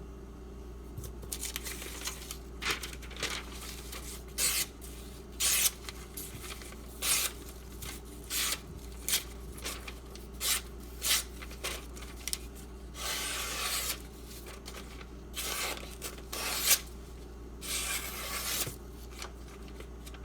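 A freshly sharpened knife edge slicing through paper in a run of short, crisp cuts about once a second, with a couple of longer drawn slices, testing the edge for sharpness along its length.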